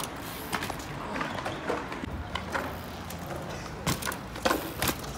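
Mountain bike clattering on concrete during tricks: a string of irregular sharp knocks and clacks.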